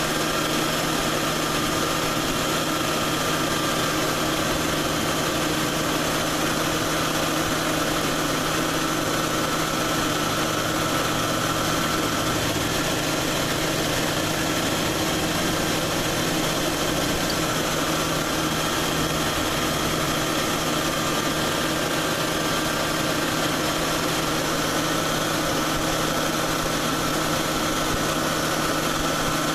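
Ford Crown Victoria V8 idling steadily with the A/C compressor running. A higher whine drops out about twelve seconds in and returns about five seconds later, matching the compressor clutch cycling off and on, which the owner finds odd and cannot explain.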